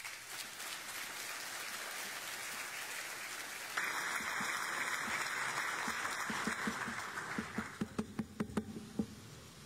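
Audience applause, growing louder about four seconds in, then thinning to a few separate claps before it stops.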